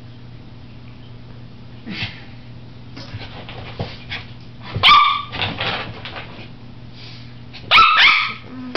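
Papillon barking sharply and fearfully at a colander. The barks are spaced out: a light one about two seconds in, the loudest near the middle with a few softer yips after it, and two quick barks near the end.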